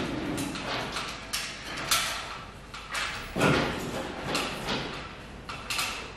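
Irregular knocks, clatters and scrapes of work and handling in a boat shed, with a louder thud about three and a half seconds in.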